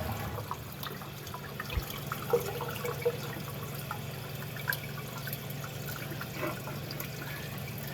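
Water trickling and dripping inside a toilet tank, with a few light clicks and knocks of the flush-valve parts being handled, one duller thud about two seconds in.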